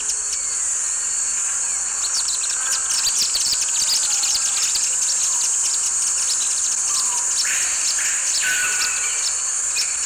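Field recording of short-tailed swifts (Chaetura brachyura) giving rapid series of high, thin twittering chips, over a steady high-pitched insect drone.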